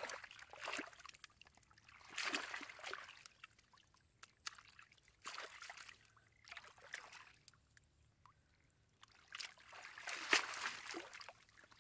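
Hands scooping and splashing muddy water in shallow water, in irregular bouts with short pauses. The loudest splash, with water pouring off, comes near the end as a woven basket trap is lifted out of the water.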